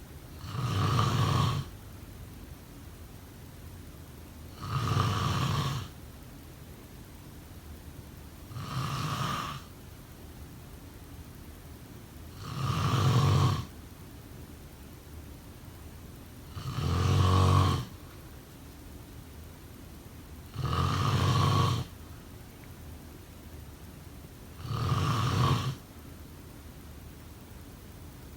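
A sleeper snoring in a slow, even rhythm: seven snores about four seconds apart, each lasting a little over a second.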